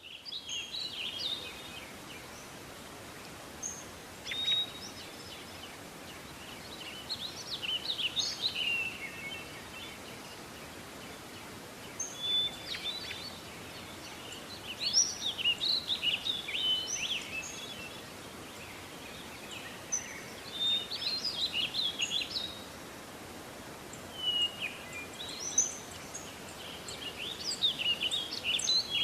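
Morning nature ambience: songbirds chirping and singing in bursts of quick notes every few seconds over a steady outdoor hiss.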